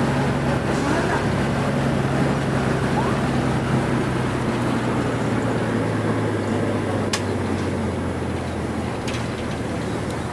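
Bus engine and road noise heard from inside the bus: a steady low engine hum that drops a little in pitch past halfway, with one sharp click about seven seconds in.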